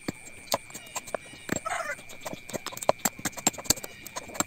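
A machete blade striking a mature coconut held in the hand, chipping the hard shell off the meat: irregular sharp knocks, about two a second.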